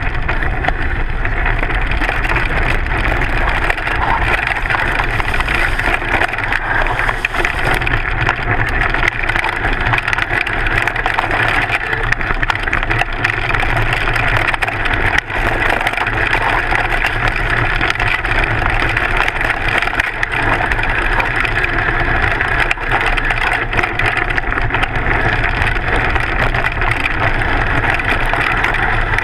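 Mountain bike descending fast on a dirt and gravel trail, heard close to the front fork: continuous clattering and rattling of the bike and its front tyre over the rough ground.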